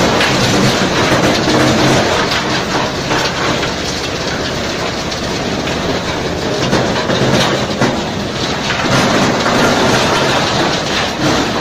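Tub-type tree root and stump grinder running, a steady machine hum under a dense, continuous clatter of roots being ground into wood chips.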